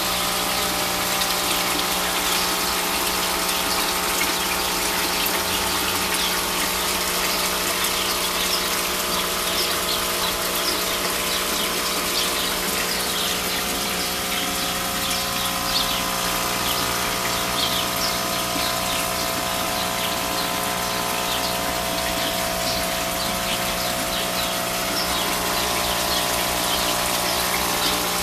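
Water pump running with a steady hum over a constant rush of gushing, splashing water.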